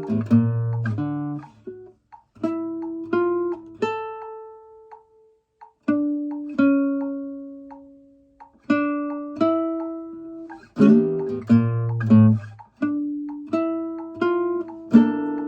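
1976 Kazuo Yairi CY 130 guitar played in a slow phrase of plucked chords and single notes, with a pause about four seconds in where one note is left ringing out, then held notes before the chords resume.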